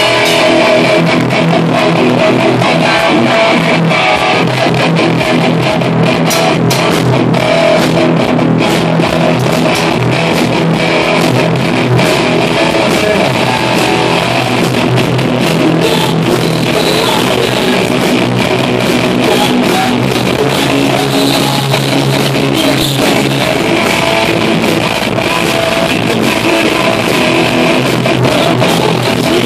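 Live rock band playing loud: electric guitar and bass over a drum kit with steady cymbal and drum hits.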